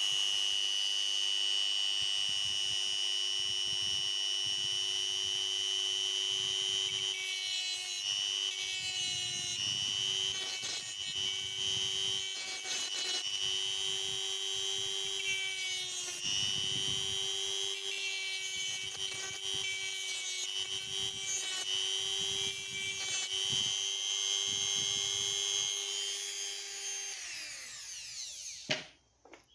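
Ryobi EHT150 rotary tool with a cut-off disc running at high speed with a steady whine. From about seven seconds in it cuts through the nickel strip on an 18650 battery pack, the pitch wavering and roughening as the disc bites. Near the end it is switched off and winds down with a falling pitch, followed by a single click.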